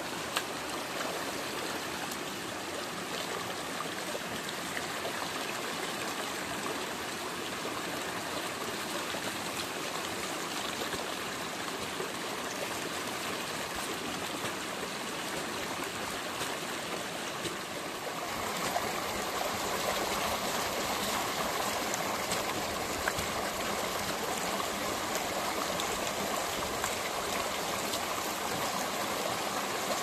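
Steady rush of flowing water, turning a little louder and brighter about two-thirds of the way through.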